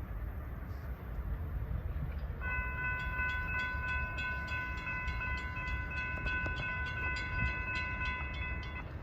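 A freight train rumbling past a grade crossing. About two and a half seconds in, the crossing bell starts ringing, about four strikes a second, and it rings until the sound cuts off.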